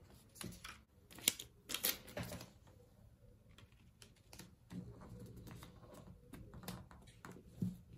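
Faint crackles and taps of a plastic transfer-tape and vinyl decal sheet being handled and peeled, busiest in the first two seconds and sparser after.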